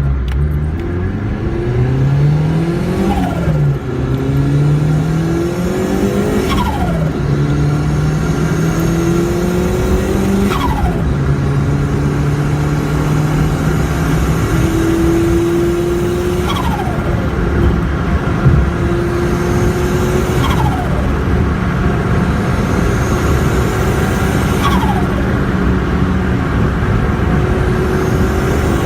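Turbocharged Perodua Kancil engine revved again and again. Each time the throttle is lifted, about every four seconds, there is a turbo flutter and a falling turbo whistle.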